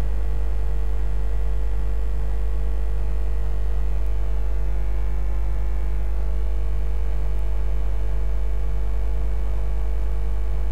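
Steady low electrical mains hum, with a few fainter higher steady tones over a light hiss.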